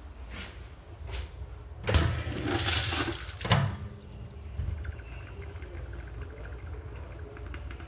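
Wall-hung urinal flushing: a sudden loud rush of water about two seconds in that lasts under two seconds, then tails off into quieter running and draining water in the bowl.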